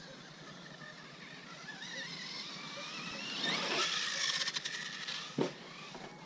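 Arrma Kraton RC monster truck's electric motor whining on dirt, its pitch rising sharply about three and a half seconds in as it speeds up. A single sharp thump follows about five seconds in.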